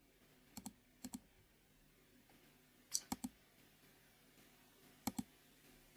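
Faint clicking at a computer: short sharp clicks, mostly in close pairs, a little after half a second, at about one second, around three seconds and about five seconds in, over quiet room tone.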